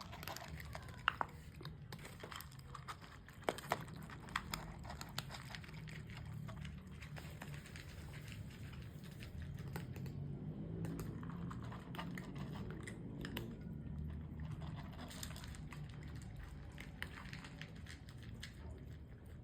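Cats eating: faint scattered clicks and crunches of chewing and of food being picked at, over a low steady rumble.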